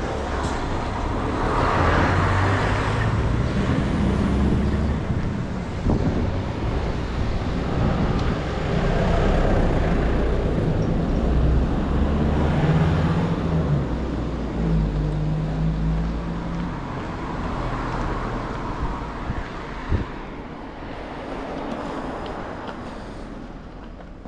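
Road traffic driving past close by: cars and trucks, engine hum and tyre noise swelling and fading as each vehicle passes, growing quieter near the end.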